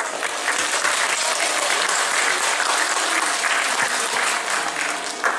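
Audience applauding, steady at first and then tapering off near the end.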